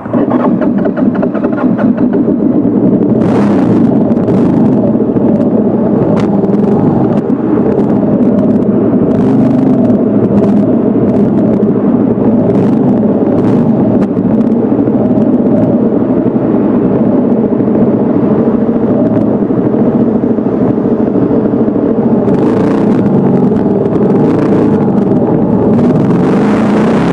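Motorcycle engine running at a steady cruise while riding, with wind noise on the microphone and brief gusts now and then.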